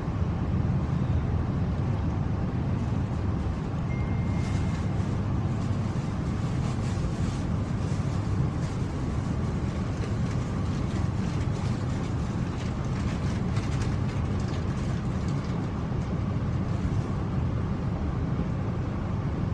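Passenger train running on the rails as it comes into a station, heard from inside the carriage: a steady low rumble, with a brief high squeal about four seconds in and faint clicking through the middle.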